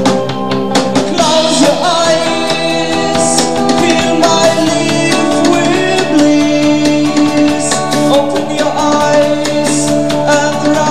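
Rock band playing live: drum kit keeping a steady beat under electric guitar, bass and keyboards, with a singing voice carrying a melody over it from about a second in.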